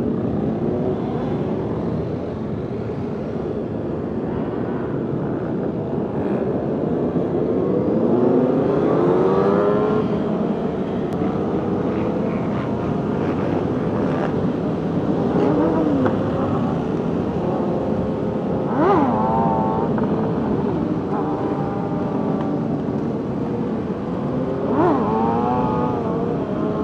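A pack of many motorcycle engines running together, with a steady engine din and several quick rev blips that rise and fall sharply in pitch.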